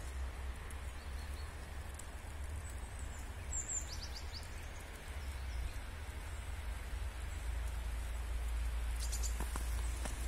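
Snowy-forest ambience: a steady low rumble under a faint hiss, with a few short, high calls of small birds, a quick group of chirps about four seconds in and more near the end.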